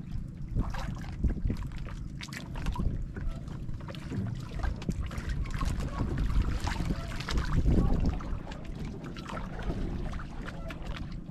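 Wind rumbling on the microphone, with irregular small knocks and splashes of water against the hull of a small outrigger boat.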